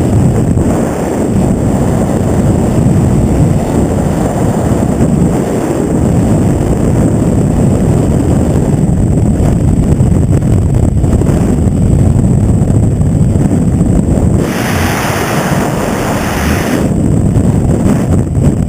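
Loud wind buffeting the microphone over a low, steady rumble. A brighter hiss rises for about two seconds near the end.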